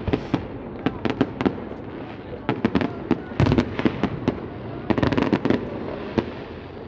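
A fireworks display: sharp bangs and crackling pops come irregularly, thickening into dense salvos about halfway through and again about five seconds in.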